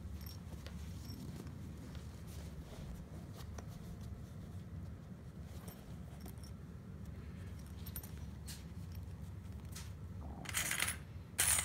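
Hands handling a fabric purse and small sewing clips: faint clicks and rustles over a low steady room hum, then two short, louder rustles near the end.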